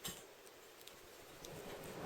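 Kittens moving about: a faint scuffling patter with a light tap at the start, swelling slightly near the end.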